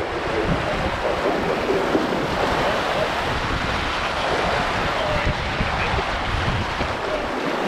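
Water rushing and splashing along the hull of a sailing yacht under way, with steady wind noise on the microphone.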